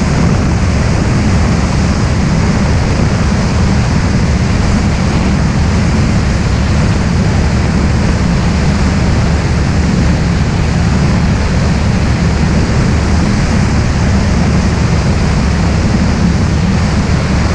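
Steady drone of a single-engine light aircraft's engine and propeller in flight, mixed with heavy wind rushing over the microphone. The sound holds at one level throughout, deepest and strongest in the low end.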